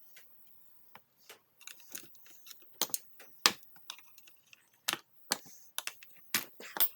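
Irregular sharp clicks and knocks of the plastic parts of a Shark vacuum's power nozzle being handled and worked apart by hand, the loudest about three and a half seconds in.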